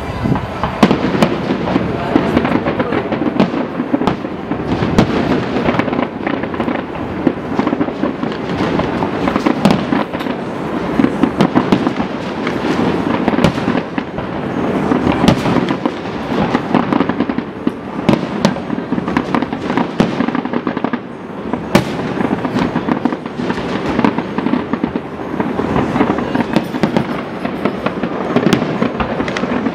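Fireworks display: shells bursting overhead in a dense, unbroken run of bangs following closely one after another.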